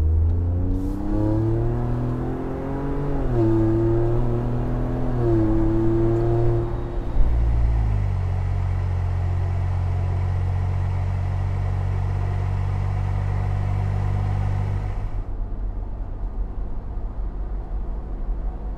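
Exhaust of a Ford Bronco's 2.7L EcoBoost twin-turbo V6 through a CVF turbo-back system with high-flow cats, deep in tone. For the first several seconds it accelerates, the pitch climbing and dropping back twice as it shifts up. Then it holds a steady cruise, and near the end it sounds duller, as heard from inside the cabin.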